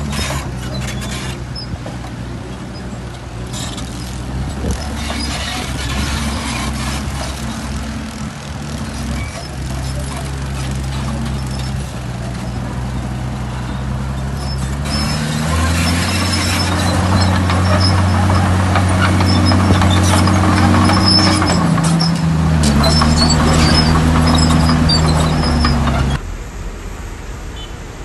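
Diesel engine of a Komatsu D51PX crawler bulldozer working. About halfway through its pitch rises and it gets louder as it takes load, with rattling and clanking over it. The sound drops off abruptly shortly before the end.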